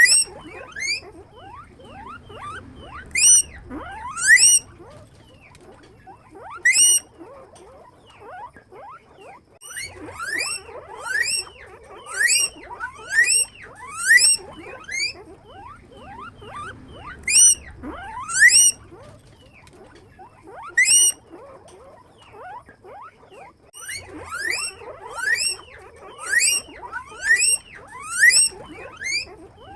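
Several guinea pigs wheeking: short whistles that rise sharply in pitch, the loud ones coming in quick runs of three to six calls with fainter squeaks overlapping between them, and two brief lulls.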